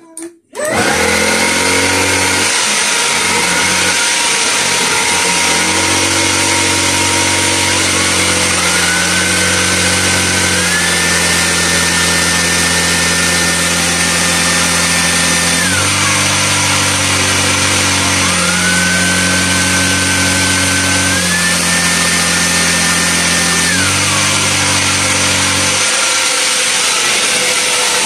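Xiaomi Mi Handheld Vacuum Cleaner Pro (G10) cordless vacuum running steadily, locked in continuous mode. Its motor whine steps up in pitch twice as the power mode is raised to high power, falls back, then steps up twice and falls again.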